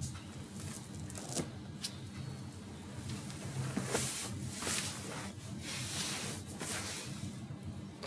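Handling of a plastic syringe and a silicone mold: a few light clicks, then soft rubbing and scraping as the syringe tip is pushed into the sphere mold and the plunger is pressed to inject epoxy resin.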